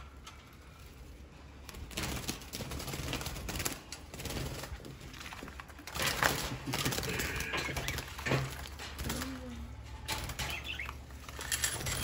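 Budgerigars flapping their wings and scrambling inside a wire cage as a hand reaches in, with clicking and rattling of the cage wire, starting about two seconds in.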